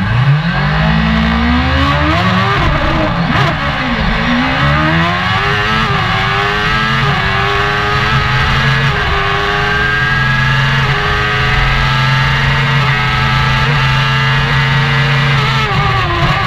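Silver Car racing car's engine heard from inside the cockpit, launching and accelerating hard, the revs climbing and dropping through several quick upshifts in the first few seconds. It then runs at high revs with short dips at each gear change, and the revs fall briefly near the end.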